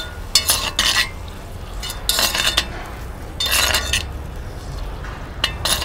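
Ingredients dropped by hand into a hot cast-iron pot of simmering red wine reduction: four short hissing bursts as the chanterelles, bay leaf and star anise go in, over a steady low hum.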